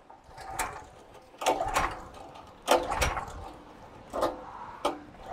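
Clicks and clunks from a gas pressure washer's switches and controls being pressed and handled, about seven in irregular succession, some with a short ringing; the machine is not yet running.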